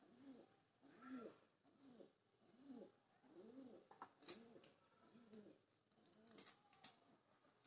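Dove cooing softly: a steady run of low, rounded coos, a little more than one a second. A couple of faint sharp clicks come about halfway through and near the end.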